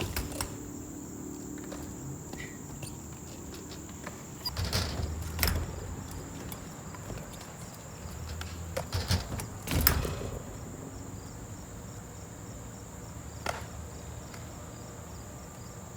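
Crickets chirping steadily, with a few sudden knocks and scrapes from a BMX bike riding the skatepark, loudest around five and ten seconds in.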